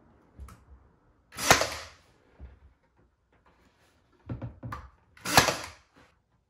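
Two shots from a Ryobi AirStrike cordless nailer, about four seconds apart, driving small nails to fix a wooden crush block to the underside of a cabinet. Lighter clicks and knocks of handling the tool come between the shots.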